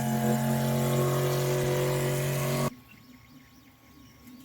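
An engine running at a steady speed with an even drone, which cuts off abruptly a little under three seconds in, leaving only faint background sound.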